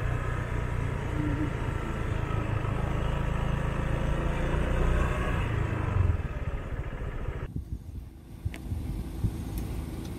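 Motorcycle being ridden, its engine and road noise steady. The sound drops away abruptly about seven and a half seconds in, leaving a quieter background with a few faint clicks.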